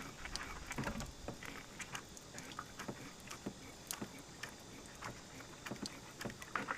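Rubber primer bulb on an outboard's fuel line being squeezed by hand, giving faint, irregular clicks and soft rubbing. It is priming the line from the tank, before gas has reached the bulb.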